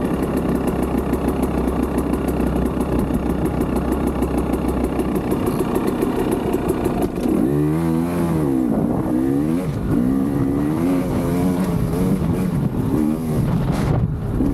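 2020 KTM 300 XC single-cylinder two-stroke engine, converted to throttle-body injection, running steadily. About halfway through it is revved up and down in repeated rises and falls.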